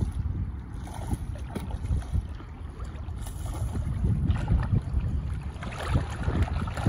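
Wind buffeting the microphone in a steady low rumble, with shallow saltwater sloshing and splashing now and then.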